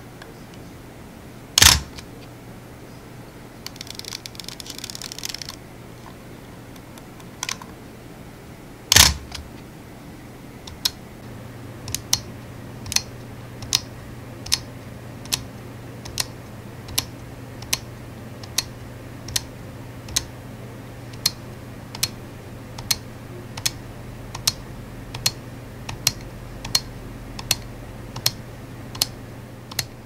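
Nikon FM2 mechanical 35mm film SLR handled close up: two loud sharp shutter-and-mirror clicks about seven seconds apart with a brief rattle between them, then its shutter speed dial turned click by click through its detents, a small click a little more than once a second.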